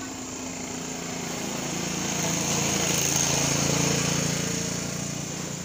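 A small engine humming, swelling to its loudest about three seconds in and easing off again.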